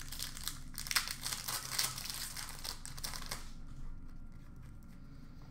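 Wrapper of a hockey card pack crinkling as it is handled and torn open, a dense crackle that dies down after about three and a half seconds.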